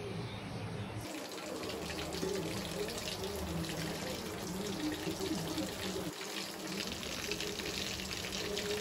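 Chicken curry gravy simmering on a low gas flame, bubbling and sizzling in a steel pot with a steady fine crackle.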